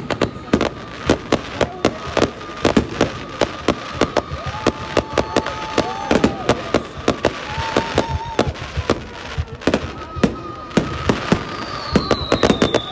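Fireworks display going off in a rapid barrage: sharp bangs and crackles several times a second, with a high whistle falling in pitch near the end.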